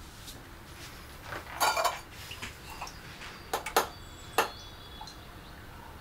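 Kitchenware clinking and knocking: dishes and cutlery handled at a counter, a short cluster of clinks about a second and a half in, then a few single sharp knocks near the middle.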